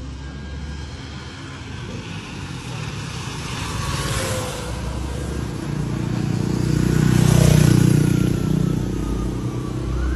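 Road traffic going by: motor vehicles and motorbikes with a steady engine and tyre rumble. One vehicle passes close about four seconds in, and a louder one about seven seconds in.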